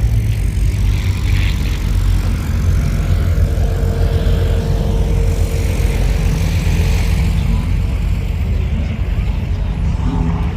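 Loud aircraft engine noise from a display plane overhead: a continuous deep drone with a rushing haze above it that thins out near the end.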